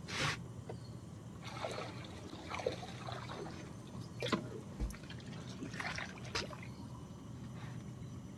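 Water lapping and trickling against a small boat's hull in a series of light, irregular splashes, over a faint steady low hum.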